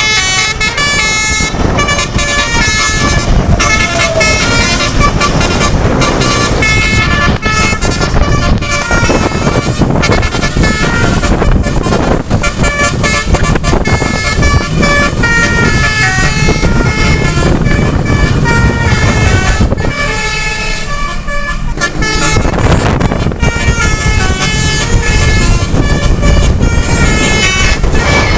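Bus telolet horn, a multi-tone air horn, sounding a long run of stepped, tune-like notes, with a brief pause about two-thirds of the way through, over steady vehicle engine and road noise.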